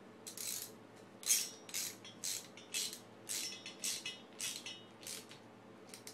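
Socket ratchet clicking in about ten short bursts, roughly two a second, as a fastener on a small motorcycle engine's cylinder head is turned.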